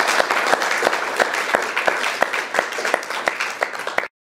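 Audience applauding: dense clapping that thins a little and cuts off suddenly about four seconds in.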